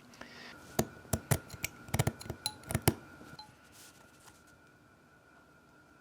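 Small hard 3D-printed plastic parts clicking and tapping against each other as they are handled, a quick run of about ten sharp clicks over two seconds.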